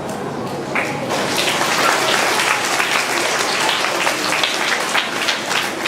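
Audience of schoolchildren clapping in a hall, applause picking up about a second in and running on steadily.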